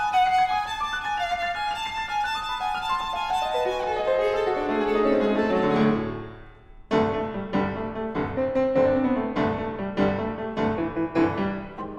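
Viola and piano playing classical chamber music: the viola plays a quick high passage, then a falling run that fades out about six and a half seconds in. After a brief gap the piano comes in alone with a string of struck chords.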